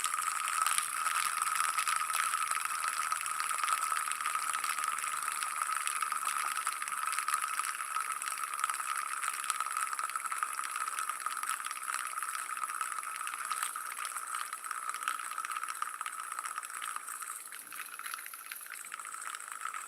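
Fidget spinner spinning freely on its ball bearing: a steady, fast whirring rattle with a constant high whine, slowly getting quieter over the last few seconds as it spins down.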